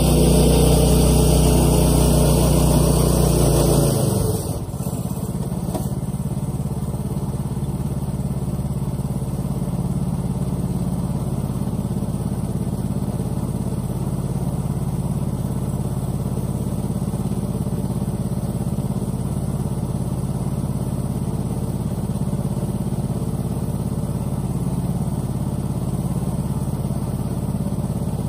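Old Toyota pickup's engine revving hard for about four seconds as its tires spin and dig into the mud, then dropping to a steady idle.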